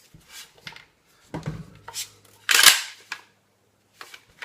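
Sharp metallic clicks and clacks from handling a reassembled Mossberg 500 shotgun and its Blackhawk Knoxx collapsible stock: a few faint ones, then several louder ones, the loudest about two and a half seconds in.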